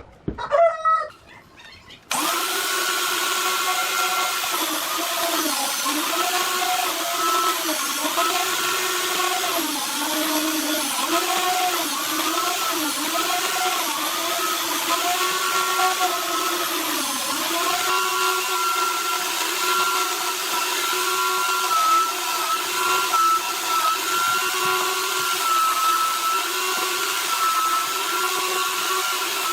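A rooster crows briefly at the start. Then an angle grinder runs with a steady whine, its pitch dipping again and again as the disc is pressed into the work while sanding, and holding steady near the end.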